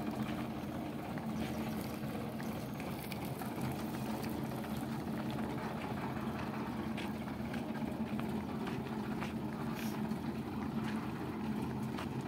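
Tractor diesel engine running steadily at low road speed while towing a threshing machine, a low even hum with a few light rattles.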